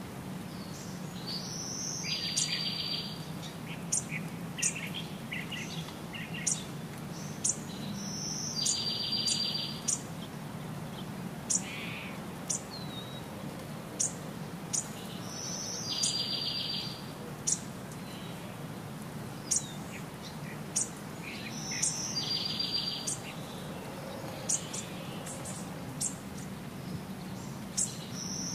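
Birdsong: a rising high call followed by a buzzy trill about a second long, repeating about every six and a half seconds like a loop, with short sharp high chirps scattered in between over a steady low hum.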